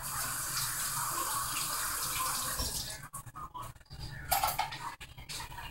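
Kitchen tap running in a steady stream for about two and a half seconds, then turned off, followed by a few light knocks and handling sounds.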